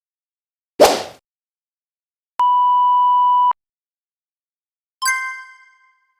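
Three separate sound effects with silence between them. First a short sharp burst of noise that dies away quickly, then a steady electronic beep at one pitch lasting about a second, then a bell-like ding that rings out and fades.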